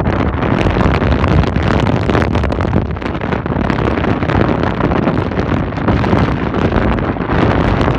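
Strong wind blowing across the microphone: loud, continuous buffeting noise, heaviest in the low range.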